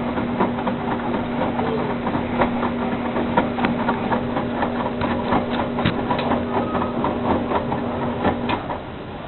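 Electrolux LE 750 washing machine running: a steady motor hum with many irregular clicks and knocks over it, cutting out shortly before the end.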